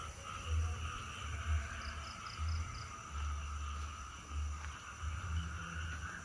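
Night insects, crickets among them, trilling steadily, with a short run of five quick high chirps about two seconds in. An uneven low rumble comes and goes throughout and is louder than the insects.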